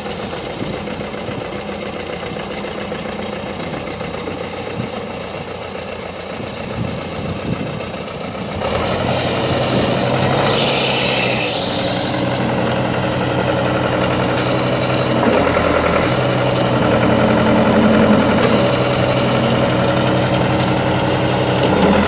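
Case 580 Construction King tractor-loader engine idling steadily, then running faster and louder from about nine seconds in.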